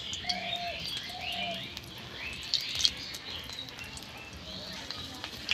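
Stuffed pointed gourds frying in hot mustard oil in a wok, a steady sizzle, with birds chirping in the background. Two sharp clicks near three seconds in.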